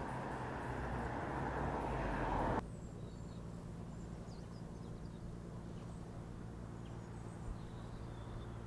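Outdoor ambience: a loud, steady rushing noise over a low hum, cut off suddenly under three seconds in, giving way to a quieter low hum with faint birds chirping now and then.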